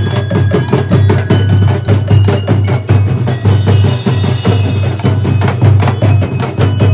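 Marching drum band playing a fast Sinulog street-dance beat: rapid snare and drum strokes over a steady deep bass, with short bell-like notes above.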